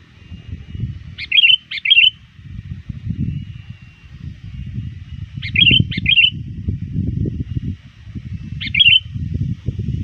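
Sooty-headed bulbul calling in short, bright chirping phrases: two phrases about a second in, two more around the middle, and one near the end. These are the calls of a tethered decoy bird challenging rival bulbuls. A low rumbling noise runs underneath.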